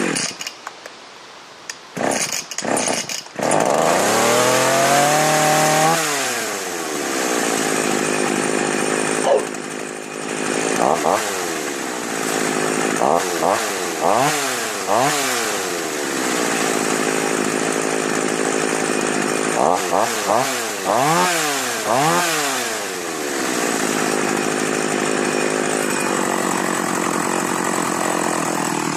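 Husqvarna 444 two-stroke chainsaw starting: the engine fires in a few short bursts about two seconds in, then catches and revs up and back down to idle. It then runs at idle, blipped up to high revs and straight back down several times, in pairs and threes.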